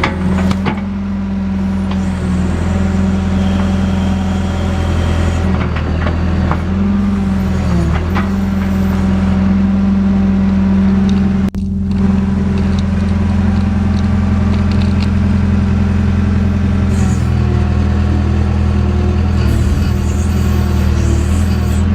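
JCB backhoe loader's diesel engine running steadily at working revs, its note dipping briefly a few times under load.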